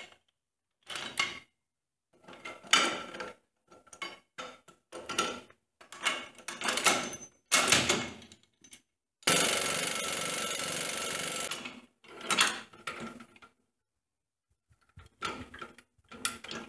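Steel stabilizer bar and bracket parts clinking and rattling as they are fitted by hand to a tractor's three-point hitch lower arm, in a string of short separate knocks, several with a ringing metallic note. About nine seconds in, a steady rushing noise starts abruptly, lasts about two and a half seconds and is the loudest part.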